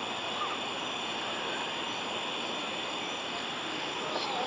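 Steady, even background hiss with no distinct sounds.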